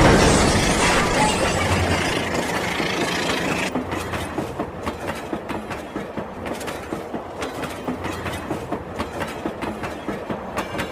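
Rail King battery toy train running on its track, its built-in train sound effect playing loudly at first and cutting off about four seconds in. After that, the train's wheels and small motor click steadily, about three clicks a second.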